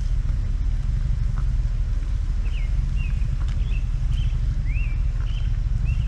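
Vehicle engine running steadily, a low even rumble, while a bird chirps over it again and again in short rising and falling notes.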